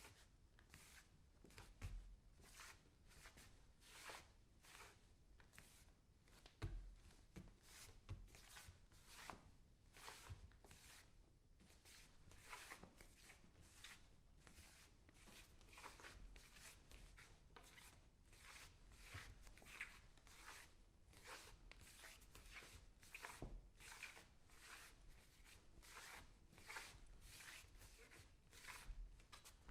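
Bare feet scuffing and shuffling on a wooden floor: a long run of short, soft scrapes, roughly one or two a second, with an occasional low thud of a foot set down.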